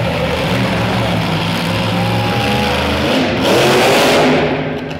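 Monster truck engine running with a steady low rumble, then revving hard into a loud roar about three seconds in as the truck climbs onto the crushed cars, easing off near the end.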